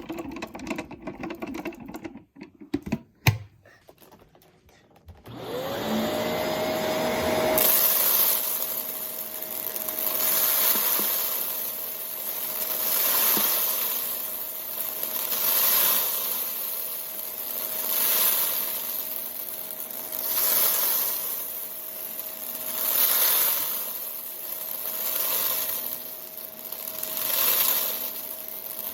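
Vacuum cleaner switched on about five seconds in, after a few clicks, its motor whine climbing to a steady pitch. Its sound then swells and fades about every two and a half seconds as it is pushed back and forth in strokes.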